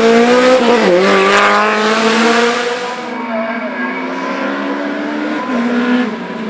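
Small saloon race car's engine at high revs under hard acceleration, its pitch dipping sharply about a second in, then climbing slowly, then dipping again near the end. The sound turns duller and a little quieter about three seconds in.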